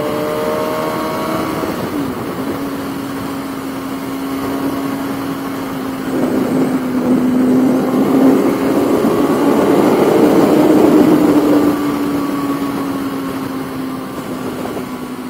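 Sport motorcycle engine running hard at highway speed, a steady engine tone with a short break about two seconds in. Wind rushes over the helmet microphone, swelling loudest from about six to twelve seconds in, then easing.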